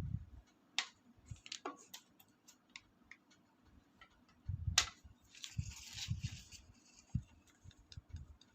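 Hands handling a plastic toy and its packaging: scattered sharp clicks and taps with low bumps, and a brief rustle of packaging about five to six and a half seconds in.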